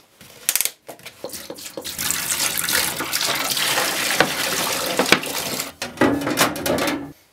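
Liquid poured from a plastic jug into the steel tank of a bench-mounted parts washer, splashing steadily for a few seconds as the tank is filled. A few knocks come near the end, as the tray is set back into the tank.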